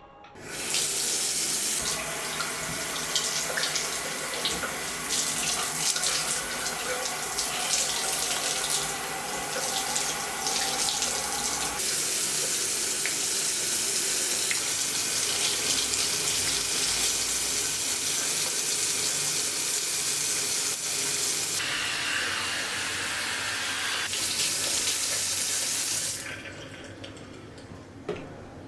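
Water running from a tap into a sink, turned on about half a second in and shut off near the end; the sound of the flow changes partway through and again for a few seconds later on.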